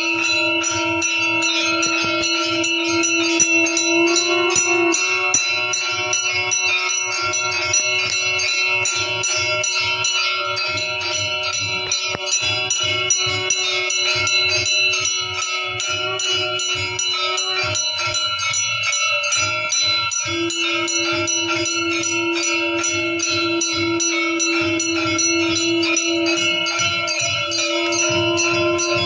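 Temple bells ringing continuously for an aarti: a fast, even clanging of strikes over a sustained ringing tone.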